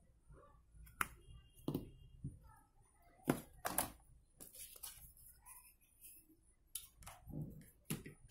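Small plastic clicks and taps from a phone charger being handled: a USB cable is pushed into the wall adapter, and the adapter is set down on the table. There are about six sharp clicks spread through, with soft rustling between.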